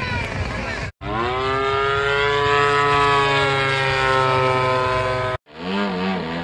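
Radio-controlled model airplane's engine running at a steady high pitch. The sound breaks off for an instant about a second in and again near the end. After the second break its pitch wavers up and down as the plane manoeuvres.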